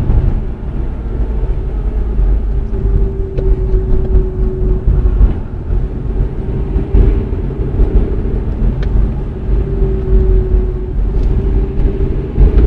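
Inside a Vortex Tingo crossover accelerating: steady engine and road rumble with a humming tone that comes and goes several times. This is an extraneous noise heard when the accelerator is pressed and gone when it is released, and absent with the engine revved in neutral.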